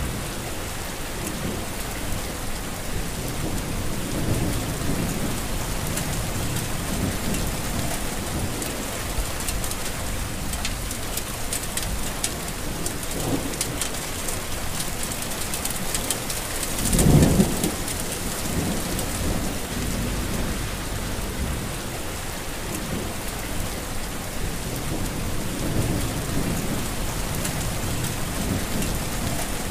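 Heavy rain falling steadily, with low thunder rumbling now and then and a louder roll of thunder a little past the middle.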